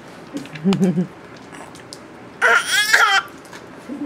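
Baby's high-pitched squealing laugh, a little under a second long, about two and a half seconds in, after a short low voice sound near the start. The baby has the hiccups.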